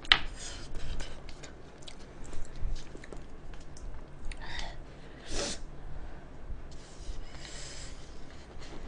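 Quiet eating sounds from instant cup noodles: small clicks of wooden chopsticks against the cup, and noodles being slurped, with a short sharp slurp about five seconds in and a softer, longer one near the end.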